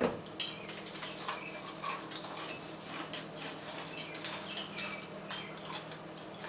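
Cutlery clicking and scraping on dinner plates as people eat, in light, irregularly spaced clicks over a low steady hum.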